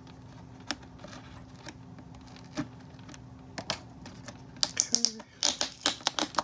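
Clear tape being picked and peeled off a cardboard box insert: a few scattered clicks, then a quick run of sharp crackles near the end.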